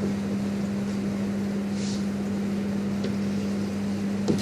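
Steady low hum over a constant rushing background noise: room tone of a hall picked up through a microphone and sound system, with a short soft hiss about two seconds in.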